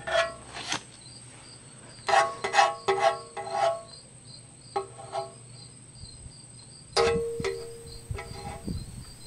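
Metal pick scraping and tapping on the oil pan bottom through the leftover oil and tensioner debris, giving short ringing squeaks in quick groups with pauses between.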